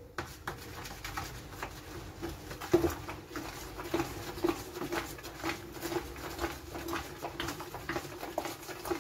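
Wooden spoon stirring a thick liquid-soap mixture in a plastic bucket: repeated soft knocks and squelches, about two to three a second, over a steady low hum.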